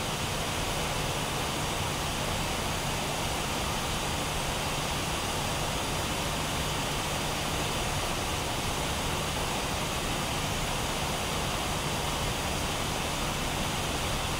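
Steady background noise: an even hiss with a low hum underneath, unchanging in level.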